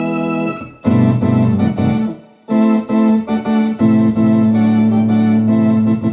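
Philips Philicorda 22GM755 organ, transistorised with valve amplification, playing sustained chords with vibrato and spring reverb. The chords break off briefly about two seconds in, then resume and are held.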